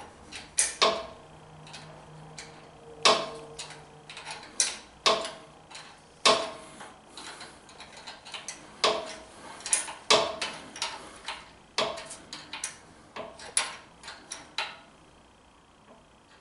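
Irregular metallic clicks and clinks of a wrench working a brass oil drain fitting tight in a generator engine's drain port. The clicks come singly or in short quick runs.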